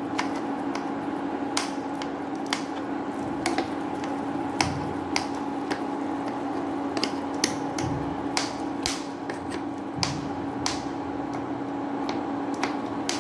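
Steel spoon pressing and mashing soft cooked papaya pieces in a nonstick pan, with irregular clicks of the spoon against the pan. The pieces are cooked soft enough to mash under the spoon. A steady hum runs underneath.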